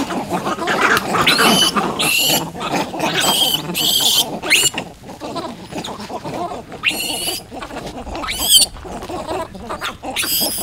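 Young vervet monkeys screaming: a string of about eight or nine sharp, high-pitched shrieks, several rising in pitch, coming thick in the first few seconds and then more spaced out. The screaming is agitation as a newcomer is put in with an established group.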